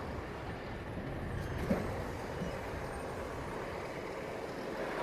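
Engine of a heavy lumber-lifting machine running steadily, with one brief knock a little under two seconds in.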